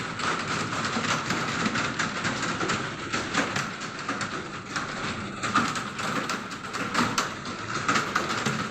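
Many computer keyboards being typed on at once: a dense, unbroken run of overlapping key clicks from a room of typists.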